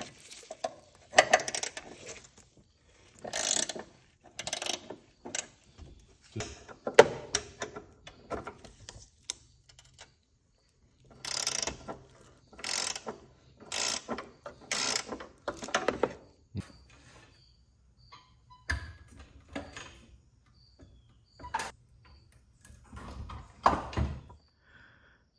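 Socket ratchet being worked in a series of short, irregular strokes, loosening a transmission mount bolt. A few quieter knocks and low thuds of metal follow near the end.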